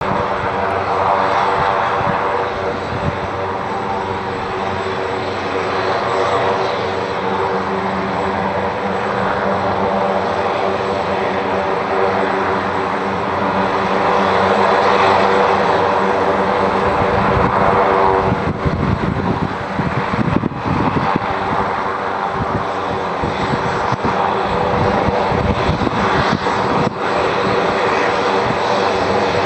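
AgustaWestland AW139 helicopter's twin turboshaft engines running with the main rotor turning, on the ground before lift-off: a steady turbine whine with a thin high tone over it. There is a few seconds of low, gusty rumble just past the middle.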